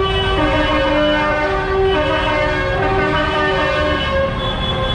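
A tune played in held notes that step up and down in pitch every half second or so, like a musical horn, over a low, steady rumble of tractor engines.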